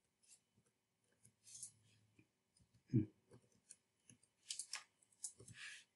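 Faint, scattered clicks of a computer keyboard as digits are typed, with a slightly louder knock about three seconds in and a quick run of clicks near the end.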